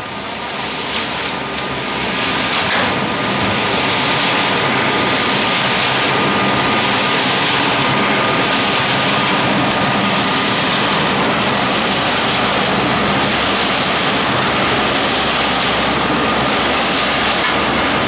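Atlas RM mini concrete batching plant running: a loud, steady machine noise from the turning mixer drum and its drive, with a faint steady whine. It grows louder over the first couple of seconds and then holds even.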